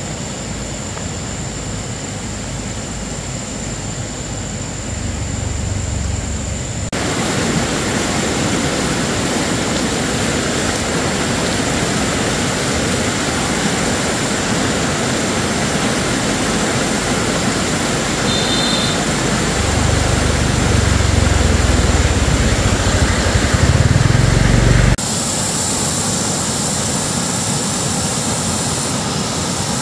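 Steady rushing of a fast-flowing mountain stream, with abrupt jumps in its level about seven seconds in and again about five seconds before the end.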